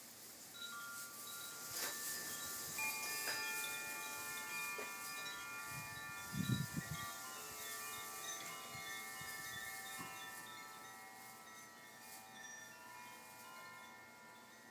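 Koshi wind chimes stirred by the breeze, sounding many clear overlapping tones that ring on and slowly fade. A brief low rumble comes about halfway through.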